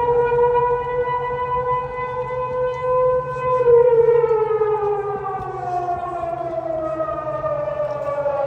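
Civil-defence air-raid siren sounding a test: one steady wail held for a few seconds, then sliding slowly down in pitch about halfway through.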